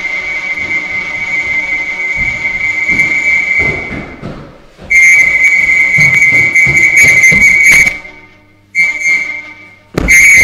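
Electronic sound-art mix of processed house recordings: a steady, high whistle-like tone over a low layer of taps and knocks. The tone fades out about four seconds in, cuts back in loudly a second later, then stops and starts abruptly twice more near the end.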